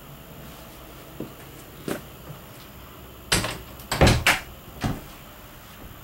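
A series of knocks and clunks: a couple of light ones, then a louder cluster about three to four and a half seconds in, and a last one near five seconds.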